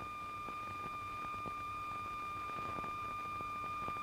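A steady, unbroken high-pitched tone with fainter higher overtones, over a light hiss with a few faint scattered clicks.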